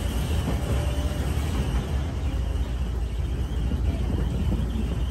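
Open-air rail cart running along the track: a steady rumble of the cart's motor and wheels, mixed with wind buffeting the microphone.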